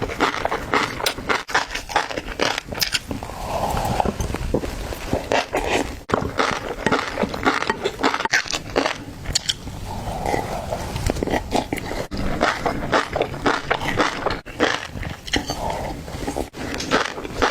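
Close-up eating sounds: fish roe being chewed, with a dense run of crackling, popping clicks and wet mouth noises.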